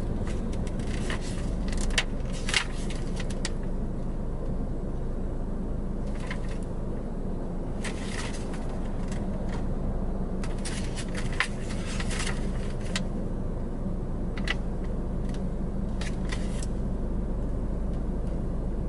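Steady low hum inside a car cabin, with scattered crinkles and clicks of paper mailers being handled and leafed through.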